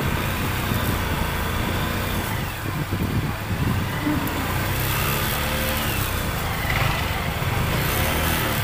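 Motorcycle engine running steadily at low speed, with the general noise of a busy street market behind it.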